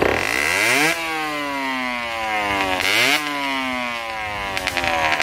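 Aprilia RS50's 50cc two-stroke single-cylinder engine revved twice: the revs climb sharply at the start and fall back slowly, then climb again about three seconds in and fall away. It is being revved to clear oil sitting in the standard exhaust.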